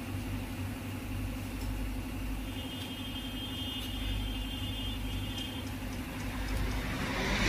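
Steady low mechanical hum, like an engine or machine running, with a few faint clicks of metal parts being handled.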